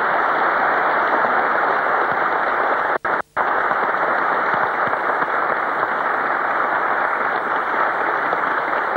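Audience applauding steadily. The sound cuts out for a moment about three seconds in.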